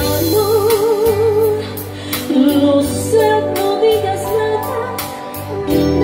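Live ranchera ballad music from an electronic keyboard: a steady bass and a ticking beat under a slow melody line that holds notes with vibrato.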